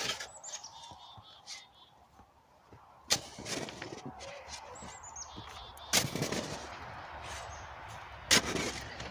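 A snow shovel striking and scraping through wet, heavy snow: three sharp hits, each followed by a second or two of scraping and sliding, with a few faint high chirps between them.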